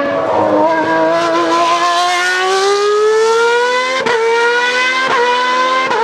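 Formula 1 car engine at high revs, its note rising steadily as the car accelerates, with three short cracks about a second apart near the end.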